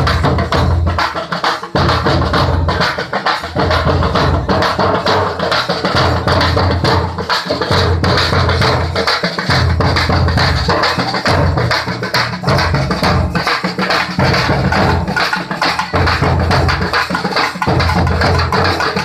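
Loud drum-driven music with rapid, dense percussion over a deep, pulsing bass beat.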